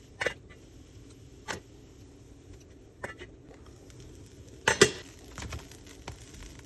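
A few separate clinks and clatters of kitchen utensils against pans and dishes while cooking, about four in all, the loudest a double clatter a little before the end.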